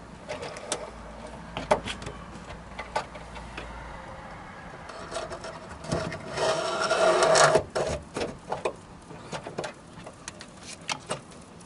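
Cable ends being pushed through plastic cable guides: scattered clicks and taps of cable and plastic, with a louder scraping rub lasting about a second and a half midway.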